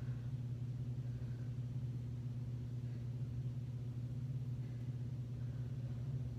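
A steady low hum, unchanging throughout: background room tone with no speech.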